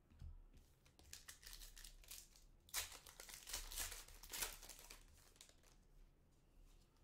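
Foil wrapper of a Panini Contenders basketball card pack being torn open and crinkled by hand. The crackling starts about a second in, is loudest around the middle, and fades out well before the end.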